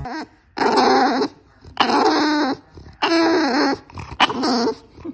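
English bulldog vocalizing: four separate calls in a row, each under a second long and wavering in pitch, the last one shorter.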